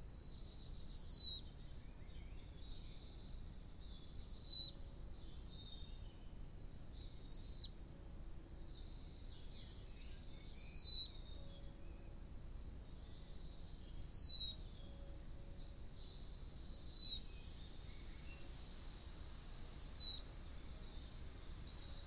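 Common blackbird giving a thin, high whistled call that slides down in pitch. The call comes seven times, about once every three seconds.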